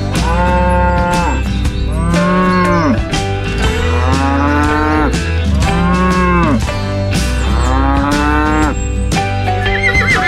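Background music with a steady beat, over which five moo-like calls sound in turn, each about a second long and arching up then down in pitch.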